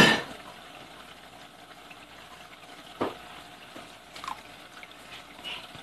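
Aquarium water splashing and trickling as a plastic swing-arm hydrometer is dipped into a saltwater tank and fills, to check the salinity. A loud splash comes at the very start, a smaller one about three seconds in, over a steady low trickle.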